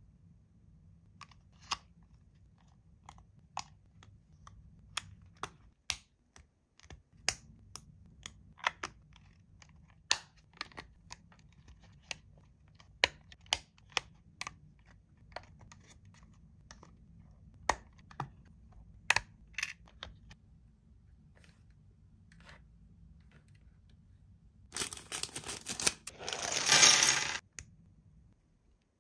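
Irregular sharp clicks and clacks of small hard objects being handled, about twenty spread unevenly over the first twenty seconds. About 25 seconds in comes a burst of noise lasting about three seconds that grows loud, then stops suddenly.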